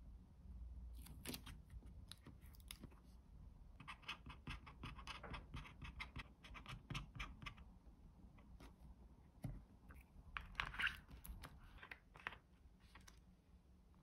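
Faint taps and clicks of plastic bottle caps handled on a wooden table, and the scratch of a marker pen writing on tape stuck to the caps.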